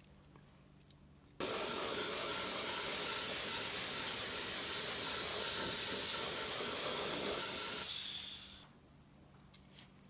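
Airbrush spraying paint: a steady hiss of air that starts abruptly about a second and a half in and dies away near the end.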